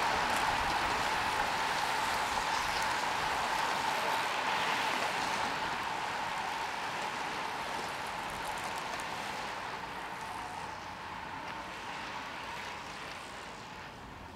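A pack of road bikes rolling past: a steady hiss of tyres on asphalt with a faint ticking of freewheels, fading gradually as the nearest riders go by and the rest stay further off.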